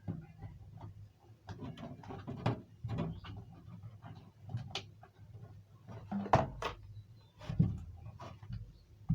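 Irregular clicks and knocks of hands fitting an induction cooker's control panel and its plastic casing back together, with two louder knocks about six and a half and seven and a half seconds in.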